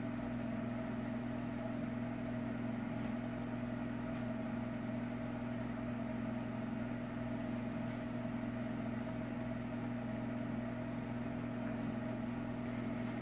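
A steady low hum with a few constant pitched tones, unchanging throughout, like a motor or appliance running in the room.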